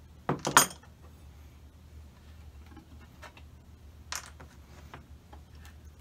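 Sharp metallic clinks of hand tools and a pulled nail being handled and set down on a wooden workbench. The loudest clinks come about half a second in, with another about four seconds in.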